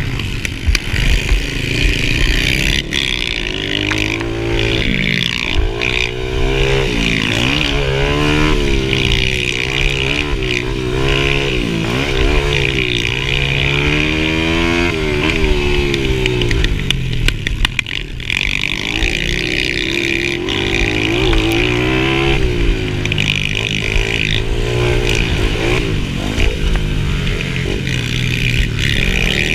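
Mini dirt bike engine heard from on the bike, revving hard while racing, its pitch climbing and dropping again every second or two as the rider accelerates, shifts and backs off for corners.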